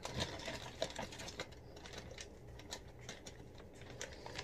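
Faint, irregular small clicks and crackles from hands pressing mini marshmallows into a crisp waffle cone, over a low steady hum.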